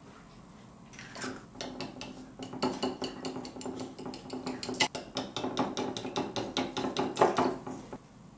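Small metal wire whisk beating eggs into buttermilk in a glass bowl, its wires clicking rapidly and rhythmically against the glass.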